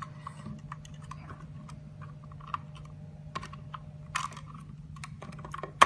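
Light clicks and taps of a circuit board being handled and worked out of a mobile DVR's case, over a steady low hum, with a louder click about four seconds in and a sharp click at the very end.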